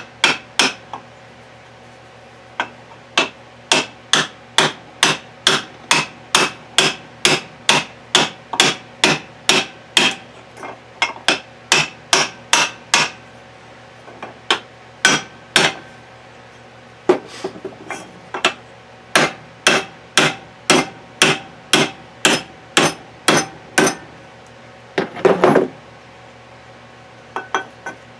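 Hammer tapping steadily on metal, about two blows a second with a few short pauses, driving a greased bronze sleeve bushing into the gearbox in place of a rusted needle bearing. A brief clattering rattle comes near the end.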